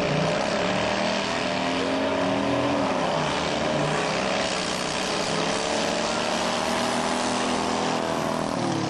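Modified racing lawnmower engine running at full throttle. It makes a loud, steady drone whose pitch climbs briefly at the start, holds, and drops away near the end.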